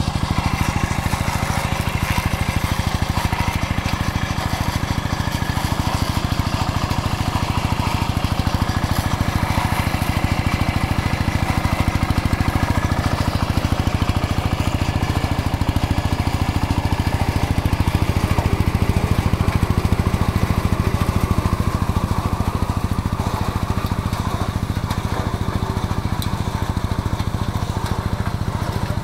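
Mini farm tractor's engine running steadily with a fast, even beat while it works a disc mower and rotary tiller through corn stubble.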